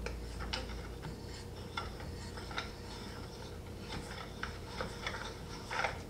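Small Allen key turning in a bolt head on a metal bench frame as the bolt is tightened: scattered light metal clicks and ticks, a few close together near the end.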